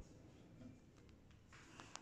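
Near silence: faint room tone with a faint tick near the end.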